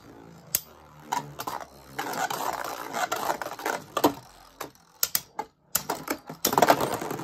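Two Beyblade Burst spinning tops, Surge Sphinx and Shield Kraken, whirring on a plastic stadium floor and clacking together in repeated sharp hits, with a flurry of clashes near the end.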